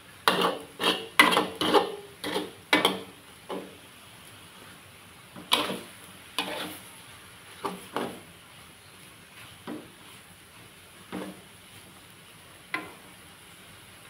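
Metal spatula scraping and knocking against a metal wok while stir-frying: a quick run of strokes in the first few seconds, then single strokes every second or so.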